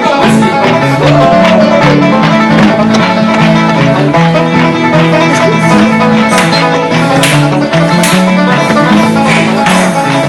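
Bluegrass music with plucked banjo and guitar, loud and steady, cutting in suddenly and stopping abruptly.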